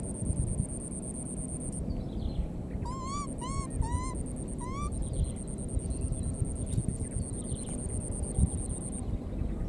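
Low rumbling noise runs under a steady high-pitched buzz, which breaks off briefly about two seconds in and again near the end. Between about three and five seconds in, four short animal calls sound, each rising in pitch, about half a second apart.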